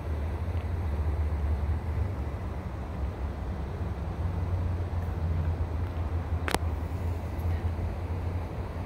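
Steady low rumble of an idling vehicle engine, with a single sharp click about six and a half seconds in.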